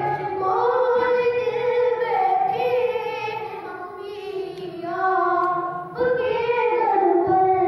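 A boy singing a manqabat, a devotional poem, unaccompanied, in long held melodic phrases, with a fresh phrase beginning about six seconds in.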